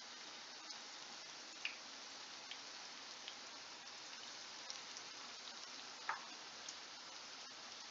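Aloo tikki (potato patties) shallow-frying in oil in a nonstick frying pan: a soft, steady sizzle with scattered pops and crackles, the loudest about a second and a half in and again about six seconds in.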